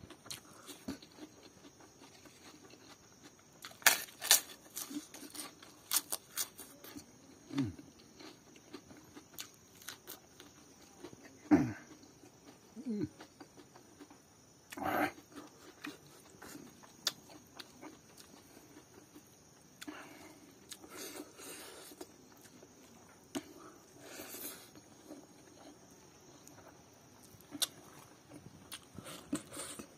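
Close-up eating sounds of fish curry and rice eaten by hand: scattered wet smacks, chewing and sticky clicks of lips and fingers, with a few short low sliding sounds, the clearest about 11 to 13 seconds in.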